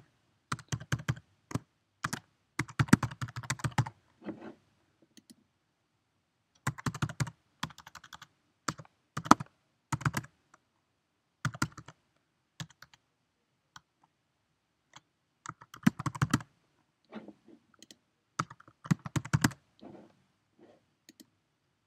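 Typing on a computer keyboard: quick runs of keystrokes with gaps of a second or more between them, and a few single louder key presses.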